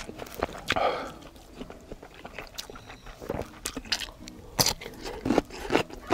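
A person chewing and biting while eating yukgaejang cup noodles, with irregular sharp mouth clicks and smacks.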